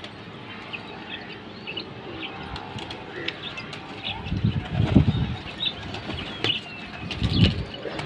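Pigeons' wings flapping as they take off and fly, loudest in bursts about halfway through and near the end, with short bird chirps in the background.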